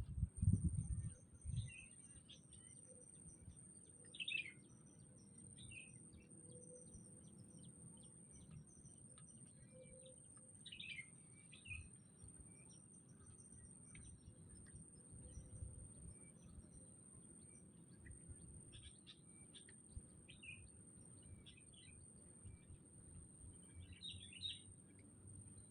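Birds chirping: short, faint calls come at irregular intervals, with a few louder bursts about 4, 11 and 24 seconds in.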